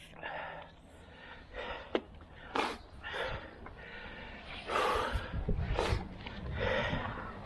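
A person breathing hard in short, gasping puffs about once a second, with a few sharp clicks or knocks in between.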